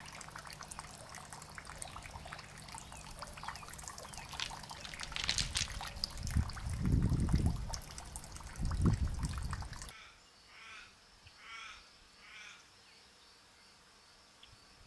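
Water trickling, dense and crackly, with two low gusts of wind rumble on the microphone partway through. It stops suddenly and gives way to a quieter stretch in which a bird calls three times, about a second apart.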